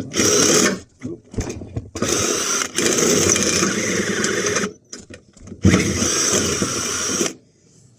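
Electric drill boring a hole through a steel bar with a twist bit, cutting metal in three bursts: a short one at the start, a long one about two seconds in and another a little before six seconds, with short stops in between.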